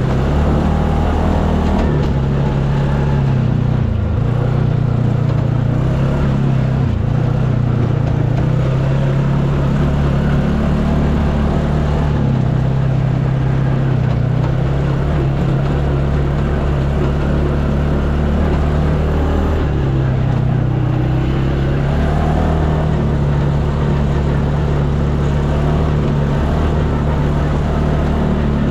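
UTV engine running steadily under way on a trail, its pitch shifting a little with the throttle.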